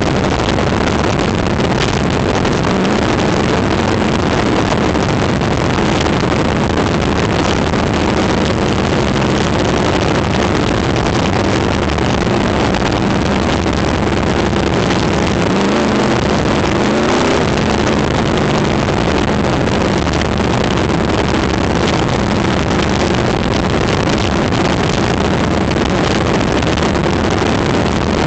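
Engine of a winged open-wheel sprint-type race car running hard at racing speed, heard from a camera mounted in the cockpit, with heavy wind noise over the microphone.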